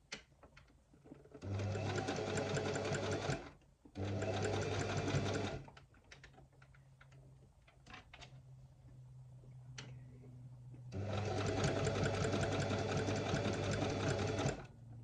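Electric sewing machine stitching in three spurts of a couple of seconds or more, stopping and starting as the foot pedal is pressed and released, with a fainter slow run and small clicks in between.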